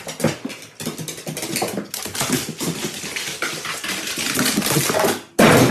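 A dog's claws clicking and scrabbling rapidly on wooden stairs as it goes down them. A short, louder burst of noise comes just before the end.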